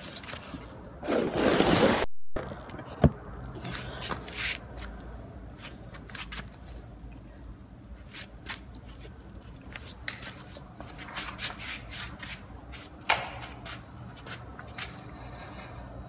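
Handling noises close to the microphone: rustling and scraping with scattered clicks. There is a loud rustle about a second in and sharp knocks at about three seconds and again near the end.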